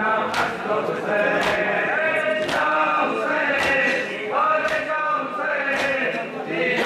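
A crowd of men chanting a noha for Husayn in unison, with a sharp beat about once a second keeping time.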